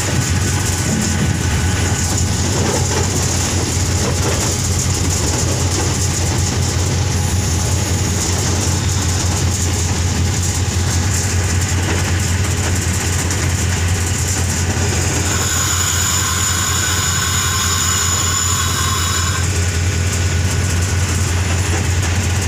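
Diesel locomotive heard from its cab, the engine running with a steady low drone over the rumble of the wheels on the track. A high-pitched squeal holds for about four seconds past the middle.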